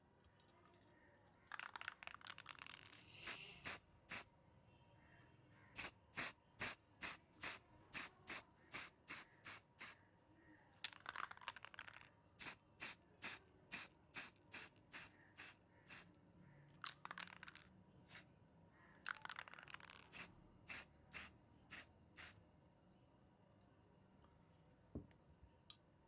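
Aerosol spray-paint can spraying in runs of short puffs, about two a second, broken by a few longer sprays of about a second.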